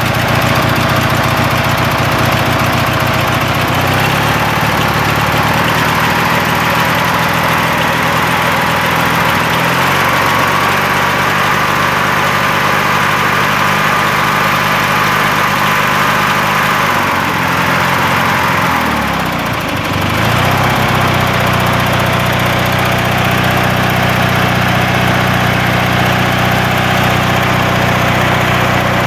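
MTD riding lawn tractor engine running after repairs on its test run. It is throttled up in two steps, about 4 and 10 seconds in, then brought back down with a brief dip around 18 to 20 seconds in, and settles to a steady lower speed.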